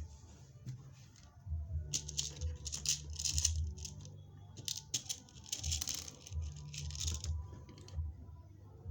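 Short bursts of rustling and clicking from working a bead rivet machine over a chiffon scarf, coming in quick clusters from about two seconds in until near the end, over a low steady hum.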